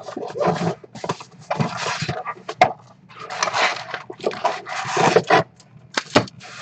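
Rustling and crinkling of trading card packs and cards being handled, in several rough bursts, with a steady low hum underneath.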